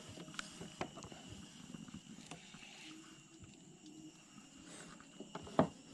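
Quiet outdoor ambience: a faint, steady high-pitched insect drone with scattered small clicks and knocks, and one louder knock near the end.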